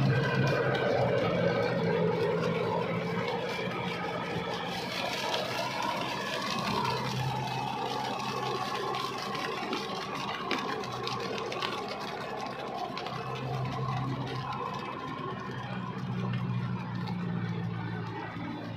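Kubota MU5501 4WD tractor's diesel engine running steadily under load as it pulls a rotavator through wet, sticky mud. The engine grows gradually fainter as the tractor moves away.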